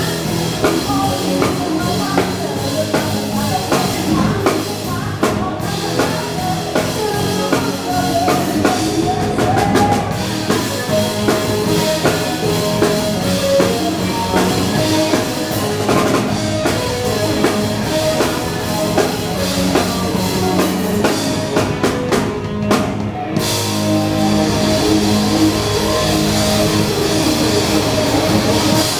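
Live pop band playing an upbeat dance number, with a drum kit keeping a steady beat under electric guitar and bass.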